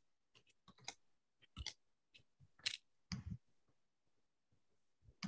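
A few faint, scattered clicks and short soft noises.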